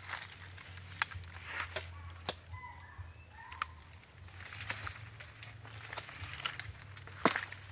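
Dry nipa palm fronds and leaf litter rustling and crackling as they are pushed aside and handled, with scattered sharp snaps.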